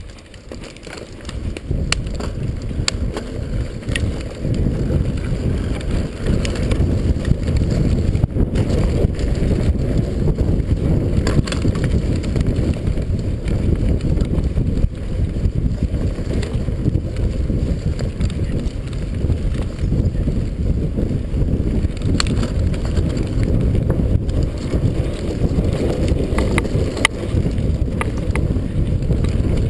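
Mountain bike running fast down a dirt trail: wind buffeting the microphone and a steady low rumble of tyres and frame over the rough ground, with scattered sharp clicks and knocks from the bike. It builds over the first couple of seconds as the ride gets going.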